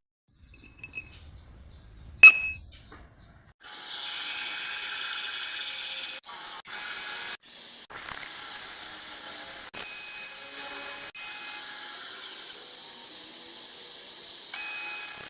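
A few light clicks and one sharp metal clank, then a power tool running on metal, starting and stopping abruptly several times.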